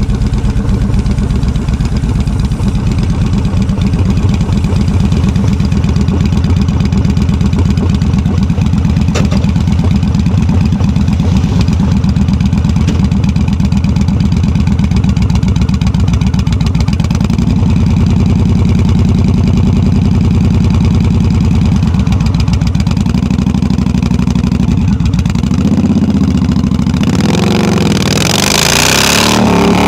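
Yamaha V Star 1300 (XVS1300) V-twin motorcycle on loud drag pipes, pulling away and riding along at a steady pace, its exhaust note shifting in steps partway through. A loud rushing hiss comes in briefly near the end.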